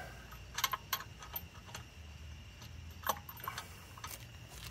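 Lug nuts being threaded onto wheel studs by hand: a scattering of light metallic clicks and ticks at irregular intervals.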